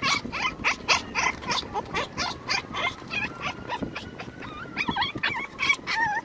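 Yorkie–silky terrier mix puppy whining and crying in a pet carrier bag: a rapid run of short, high-pitched whimpers and yelps, several a second, the pitch sliding up and down.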